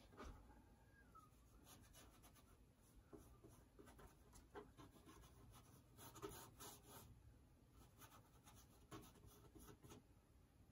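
Faint, scratchy strokes of a flat oil-painting brush dragging and dabbing paint across canvas, short and irregular with brief pauses, thickest a little past the middle.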